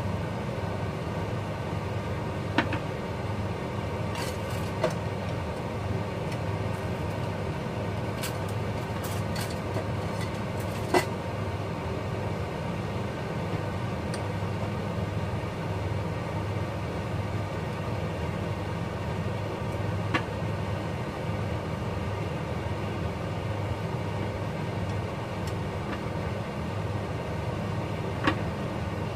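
Chopsticks clicking against a small bowl now and then as something is stirred and mixed, over a steady low hum of kitchen noise.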